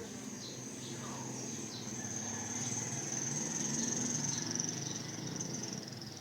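Insects droning steadily at a high pitch, swelling in the middle and easing off near the end, with short falling chirps and a low rumble underneath.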